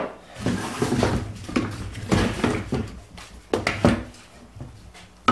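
Pine boards and tools being handled and set down on a plywood workbench: a series of wooden knocks and clatters.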